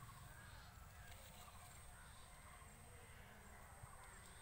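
Near silence: faint outdoor ambience with a faint, steady high-pitched tone.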